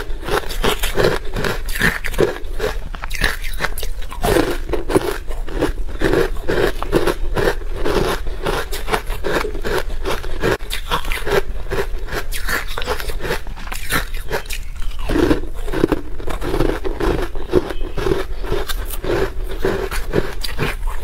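Close-miked crunching and chewing of frozen matcha ice, a steady run of crunches several a second, with metal chopsticks scraping chunks out of a plastic tub.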